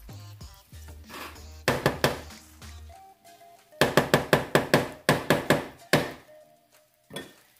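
Wooden spatula knocking against a frying pan, about five quick knocks a little under two seconds in, then about a dozen more from about four to six seconds in, over background music.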